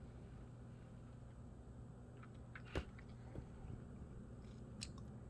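Quiet room tone with a faint steady low hum and a few small handling clicks, the sharpest about three seconds in; no thunder is heard.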